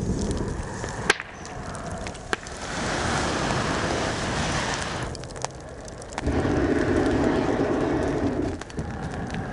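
A fire burning inside a log being hollowed out, surging in rushes as air is blown into it through a long metal tube. The longest and loudest rush comes past the middle, and sharp pops from the burning wood sound about three times.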